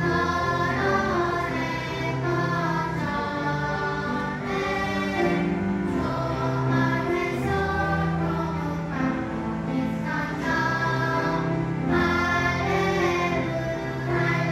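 A group of children and adults singing a gospel song in Nepali together, with a 'hallelujah' refrain, over instrumental accompaniment with held bass notes.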